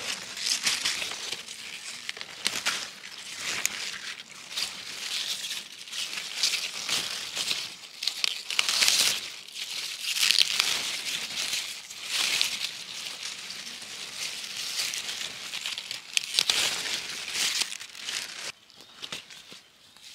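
Leafy greens being picked by hand close to the microphone: repeated crisp rustling and crinkling as leaves are snapped off and gathered, easing off near the end.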